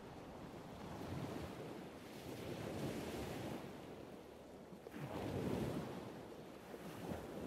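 Surf washing on a sandy beach, with wind; the wash swells up twice, about a second in and again around five seconds in.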